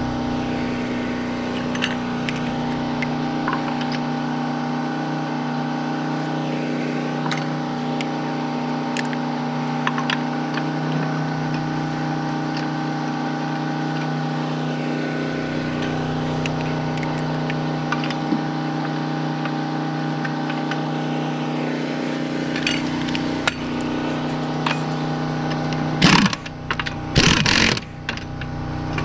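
A steady machine hum with several fixed pitches runs throughout, under scattered light metallic clicks as lug nuts are threaded on by hand. A few short, loud, noisy bursts come near the end as the nuts are run down.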